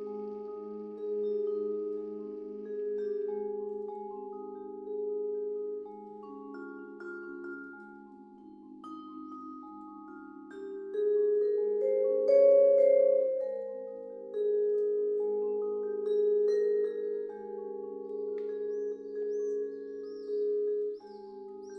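Vibraphone playing a slow passage of ringing notes and chords that overlap as they sustain, some with a slow pulsing shimmer; it grows louder about halfway through.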